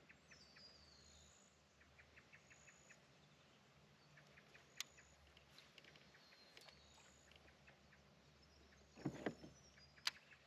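Faint riverside ambience: birds calling in high whistled notes and insects chirping in quick short runs, with a couple of sharp clicks and a brief rustle near the end.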